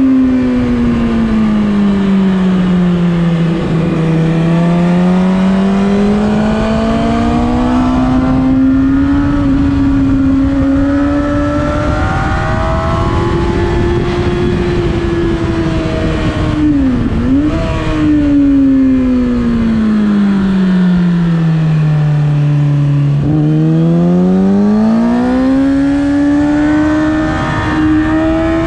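Engine of a vehicle lapping a race circuit, heard from on board. Its pitch falls and rises in long, smooth sweeps as it slows and speeds up, over a steady rush of noise, with one quick dip and recovery about seventeen seconds in.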